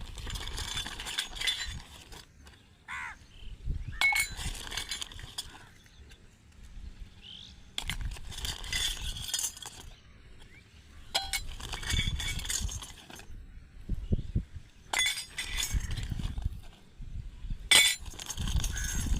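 Tiny metal toy kitchen pieces clinking and rattling against each other as they are handled, in short bursts every few seconds, with dull handling bumps in between.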